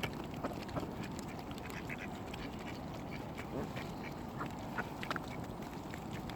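Mallard ducks quacking, with many short sharp clicks and snaps throughout.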